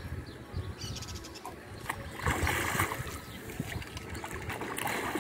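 Hooked tambaqui thrashing and splashing at the water's surface as it is played to the bank, with a louder stretch of splashing about two seconds in.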